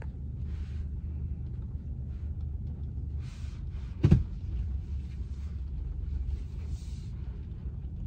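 Taxi road noise heard from inside the cabin: a steady low rumble, with a single sharp thump about four seconds in.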